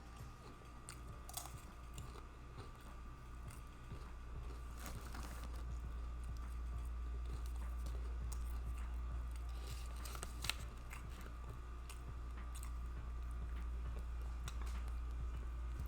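Close-up mouth sounds of a person chewing a cheesesteak sub sandwich with wet smacking, heard as scattered irregular clicks over a steady low hum.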